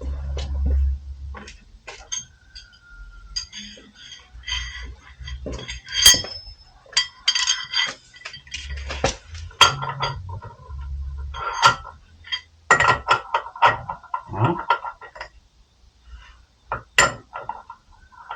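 Metal hand tools clinking and clattering in irregular, sharp knocks with short metallic rings, as tools are handled against each other and against metal car parts during repair work, with a few dull low bumps in between.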